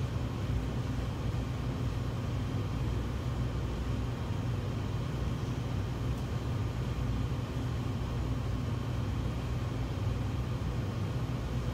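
Steady low hum of commercial bakery kitchen machinery: an even rumble with a few constant tones over it, unchanging throughout.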